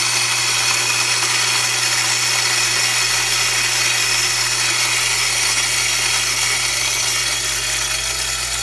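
Small Jericho-type electric flat-burr coffee mill with a direct-drive motor, switched on and grinding coffee beans: a loud whirring grind over a low hum. It sounds very uneven as it comes up to speed, and the host takes the burrs to be spinning very fast because there is no gearing.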